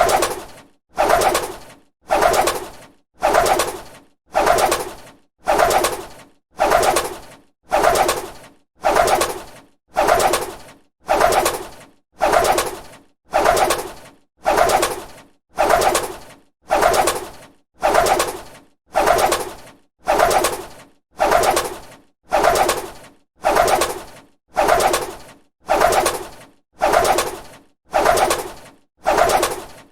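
Bird's wings flapping, a short burst of flutter that starts sharply and fades within a second, repeated at an even pace of a little under one per second as a loop.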